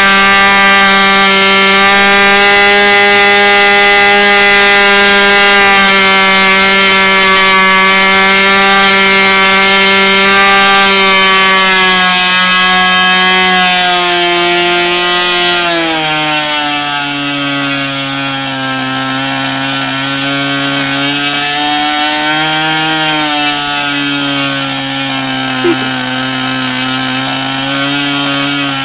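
JBA 46 two-stroke glow engine for an RC model airplane running on a test stand during break-in: a high, steady buzz that drops to a lower speed about halfway through and then runs on with a slightly wavering pitch.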